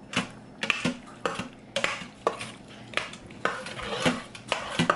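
Metal spoon stirring thick potato soup in an Instant Pot's stainless steel inner pot, clinking and scraping against the pot's sides about twice a second.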